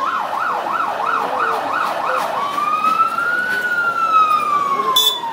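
Electronic vehicle siren sounding a fast yelp, about three sweeps a second. It then switches to a slow wail that rises and falls and stops near the end, with a brief sharp blip just before it stops.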